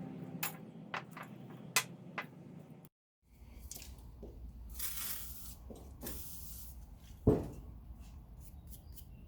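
Workshop handling sounds: scattered clicks and knocks, then two short hissing bursts of spray and one sharp knock.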